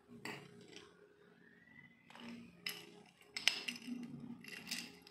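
Steel padlock and its keys clinking and clicking as they are handled and a key is fitted into the lock: a handful of separate short metallic clinks, with a quiet gap in the first half.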